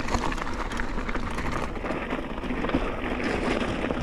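Mountain bike rolling fast down a dirt singletrack: knobby tyres crunching over dirt and stones, with the bike rattling in many small irregular clicks and a low wind rumble on the chest-mounted microphone.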